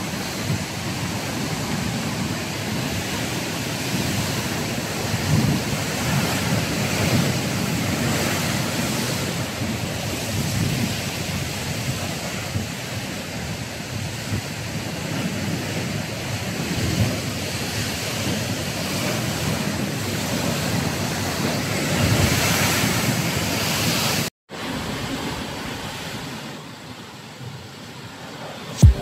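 Ocean surf washing and breaking in steady surges, with wind buffeting the microphone. A little before the end the sound cuts out for an instant and comes back quieter.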